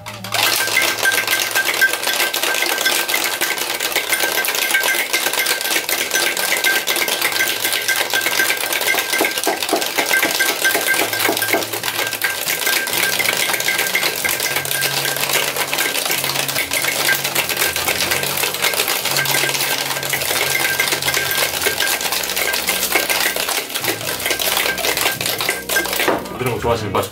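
Two large ice cubes rattling in a tin-on-tin cocktail shaker during a long, hard shake: a dense, rapid metal-and-ice clatter that stops suddenly near the end.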